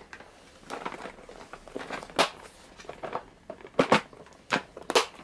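Clear plastic compartment storage box being handled: irregular plastic clicks and knocks, with some light rustling between them.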